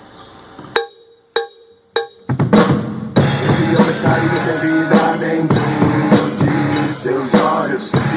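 Three evenly spaced count-in clicks, then a full song starts about two seconds in, with a drum kit playing a steady beat along with it.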